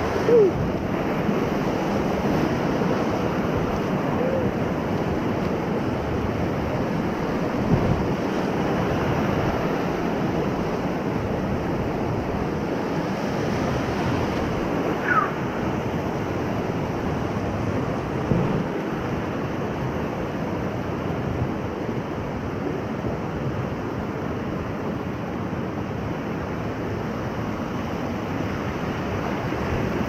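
Steady rush of whitewater rapids of the Ocoee River around a paddle raft, with wind buffeting the microphone. It rises briefly louder a few times.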